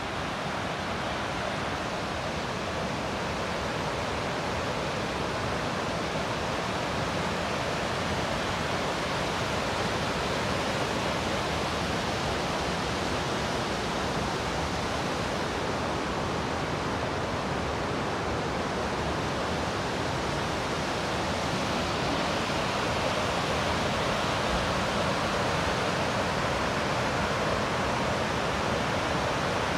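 Waterfall and rushing mountain stream cascading over granite boulders: a steady, even rush of water, growing slightly louder toward the end.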